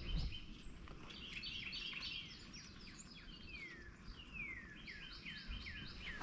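A songbird singing: repeated phrases of falling whistled notes, each followed by a quick run of short high notes.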